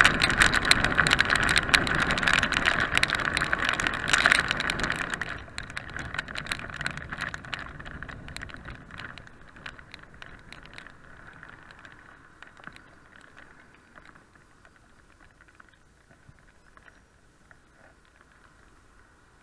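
Riding noise of a motorcycle in rain, heard through an action camera mounted on the bike: rushing wind with a dense patter of raindrops on the camera. It is loud at first and dies away over several seconds as the bike slows to a stop, leaving only a faint hiss.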